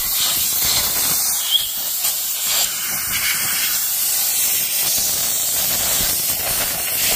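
A loud, steady hiss.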